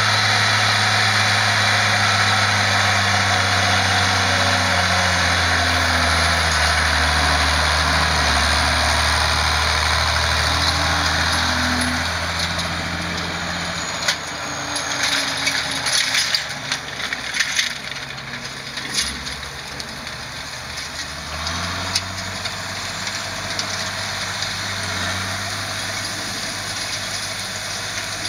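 Zetor 16145 tractor's six-cylinder diesel engine running steadily under load while it pulls a wide boom implement up a hillside field. The engine is loudest through the first half, drops back in the middle with a scatter of sharp clicks and knocks, and grows a little stronger again near the end.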